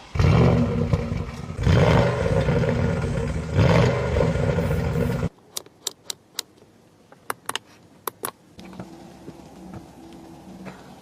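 Bentley Continental GT engine starting with a loud burst and revving, swelling twice, then cutting off abruptly about five seconds in. A few sharp clicks follow, then a quieter steady hum.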